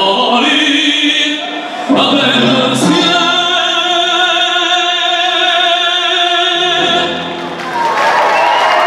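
Male operatic singer with accompaniment, holding a long loud final note for several seconds before it ends, with applause starting near the end.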